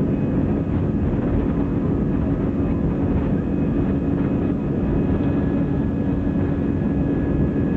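Passenger aircraft's engines running with a steady, loud rumble and a steady hum whose pitch does not change.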